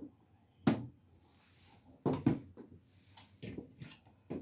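The plastic lid of a drip coffee maker shut with one sharp clack a little under a second in, followed by a few softer knocks and clicks from handling the machine.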